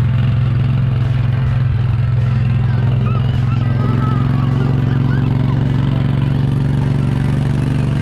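Small engine of the vehicle towing a train of cow-shaped carts, running steadily at an even speed with a constant low drone.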